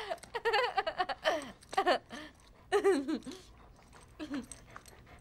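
A young woman giggling and laughing in a string of short, high bursts that die away after about three and a half seconds.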